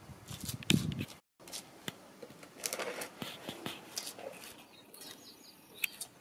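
A spatula scraping and dabbing resin mortar (resin with thickener and sand) into a cracked concrete floor: a scattered run of short scrapes and clicks, with a brief total dropout about a second in.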